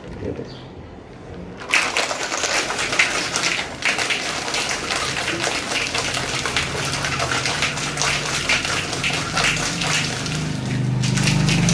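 Ice cubes and milk rattling and sloshing in a closed shaker being shaken hard, a fast continuous clatter that starts about two seconds in.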